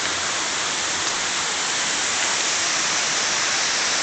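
Waterfall rushing: a steady, even roar of falling water with no changes.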